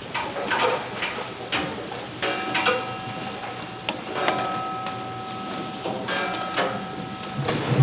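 Factory conveyor line running: mechanical clatter with irregular clicks and knocks, and a steady whine that comes in about two seconds in and drops out near the end.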